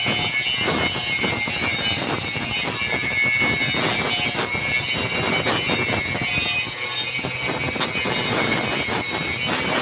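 Machine for making wobbler fishing lures running steadily, a constant hissing noise with a rapid irregular crackle through it.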